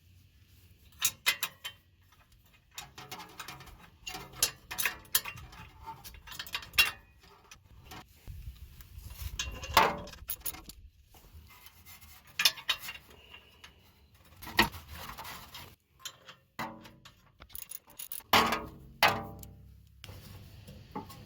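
Irregular metallic clicks and clinks of hand tools on bolts and exhaust hardware as the new muffler's flange bolts are fitted and tightened, some with a short ring.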